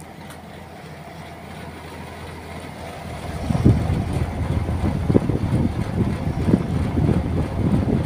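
Outdoor condenser unit of an Elektroclima split air conditioner running with a steady low hum. About three and a half seconds in, the fan's air blast hits the microphone close to the grille, and a loud, gusty low rumble covers the hum.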